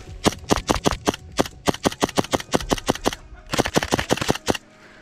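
Airsoft gas blowback pistol (Tokyo Marui Hi-Capa 4.3) fired in a long rapid string of sharp shots, about five or six a second. A short pause comes about three seconds in, then another quick burst that stops about half a second before the end.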